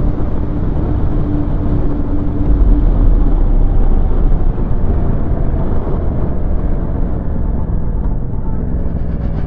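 Yamaha motorcycle on the move: a steady low rumble of engine and rushing air, which gets louder and heavier about two and a half seconds in.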